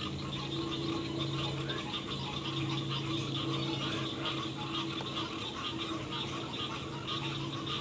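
Frogs and insects calling steadily around the pond: a high, buzzing chorus with a lower steady hum beneath.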